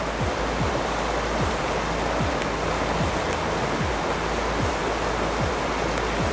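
Mountain stream rushing and splashing over rocks. Behind it runs background music with a deep, steady kick-drum beat a little more than once a second.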